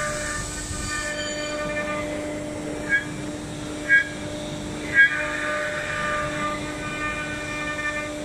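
STYLECNC STM1530C CNC router's spindle running steadily with a constant hum while the bit carves a relief pattern into a fibreboard panel. Three short, sharp high squeals come about a second apart partway through.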